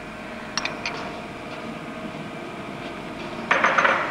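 Steady mechanical hum of kitchen equipment, with a few light clinks of a utensil about half a second in and a short burst of hissing noise near the end.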